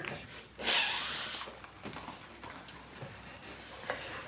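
A woman crying: one loud, noisy breath through the nose about half a second in, lasting just under a second, then faint small clicks.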